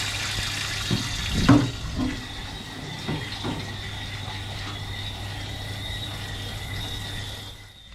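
Water running steadily from a pipe or hose, with a few knocks about a second and a half in, then cutting off near the end. The water is plausibly being run over boiled whelks in a pot to cool them.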